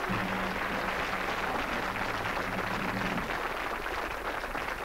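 Studio audience applauding, a dense steady clapping, with a low held tone underneath for about the first three seconds.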